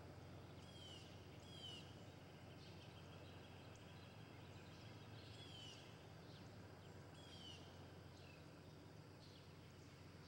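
Faint birdsong from songbirds in the trees: a handful of repeated falling whistled calls and a few short chirps, over a low steady hum.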